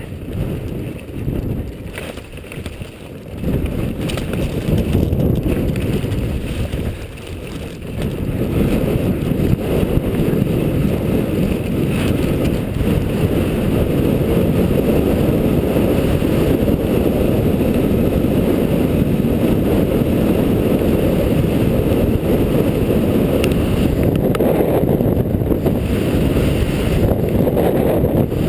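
Wind rushing over a helmet-mounted GoPro's microphone as the skier runs downhill, mixed with the skis sliding over slushy snow. It is lower and uneven for the first several seconds, then loud and steady from about eight seconds in.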